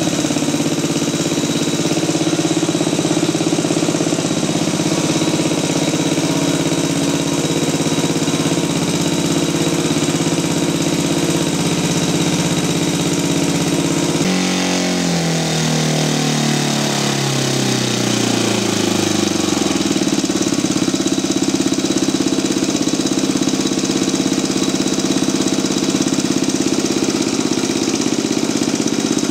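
Kolm 65 single-cylinder four-stroke gas engine running on a test stand with its propeller spinning. It runs steadily at a higher speed, then about halfway through it slows down with a falling pitch over several seconds and settles into a steady slower run.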